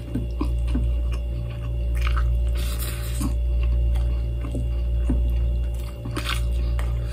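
A person chewing and squishing balut and rice close to the microphone, with small wet smacks and clicks, over a steady low hum.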